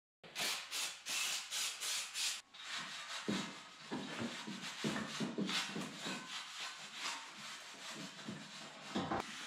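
Hand rubbing along a freshly welded steel light-bar frame as it is prepared for paint: about two seconds of quick back-and-forth strokes, then steadier rubbing with a few soft knocks.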